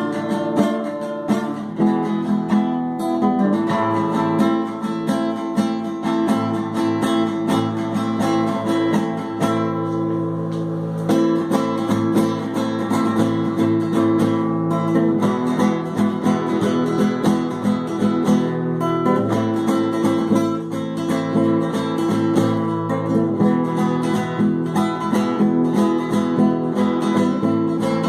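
Acoustic guitar music, notes plucked and played steadily throughout.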